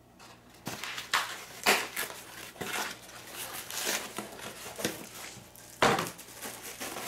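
Plastic wrap and a cardboard packing frame being pulled off a metal plate and crumpled. It is an irregular run of crinkling and crackling, with sharper rips about a second in and a loud one near six seconds.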